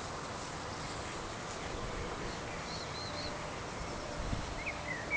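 Lakeside park ambience: a steady background hiss with small birds calling, a few faint high chirps about halfway through and a quick run of brighter chirps near the end.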